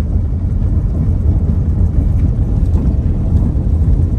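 Steady low rumble of a car driving along a dirt road, heard from inside the vehicle, with wind buffeting the microphone.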